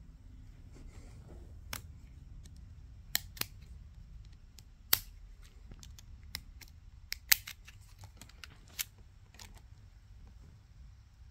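Sony RX100 VII compact camera being handled, giving about a dozen sharp, irregularly spaced clicks as its buttons and controls are pressed. The loudest clicks come about five and seven seconds in.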